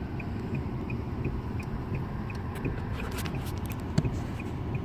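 Steady low rumble of a car's engine and road noise heard inside the cabin, with faint, even ticks about three times a second.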